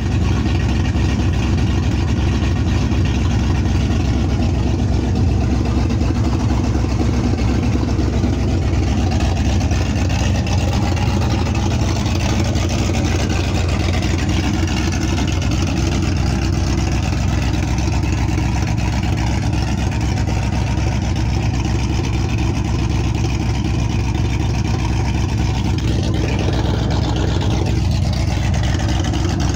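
ATK 351 Windsor V8 crate motor in a 1983 Ford F-150, fitted with Edelbrock Pro-Flo 4 fuel injection, a Howard cam and Tri-Y headers, idling steadily. It runs with its exhaust still to be done.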